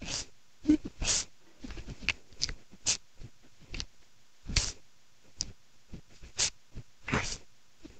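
A dozen or so short, irregular scratchy clicks and rustles, spaced unevenly, about two a second.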